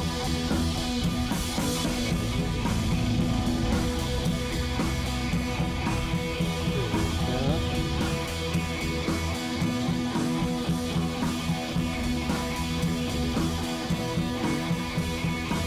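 Background music: an instrumental track with guitar and drums, running steadily.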